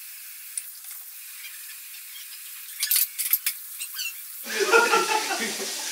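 Tap water running into a kitchen sink as dishes are washed by hand, with a quick run of dish clinks about three seconds in. The water grows louder and fuller near the end.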